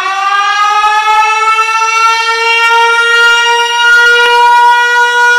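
Loud siren sound, rising in pitch at first, then holding one steady wailing pitch.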